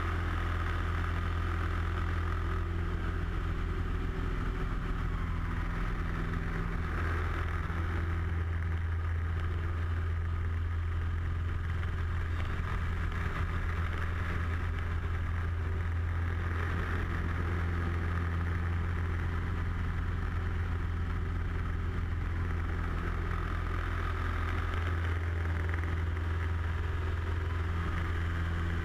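Light aerobatic plane's piston engine and propeller running at a steady pitch, heard from inside the cockpit with wind rushing past the airframe.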